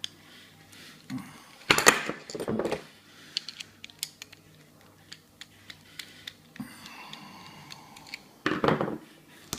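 Light metallic clicks and clinks of an American 1205 padlock and lockpicking tools being handled, with two louder handling noises about two seconds in and near the end.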